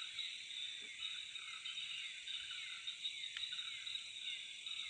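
Night chorus of insects and frogs: a steady high-pitched drone with short chirping calls repeating throughout.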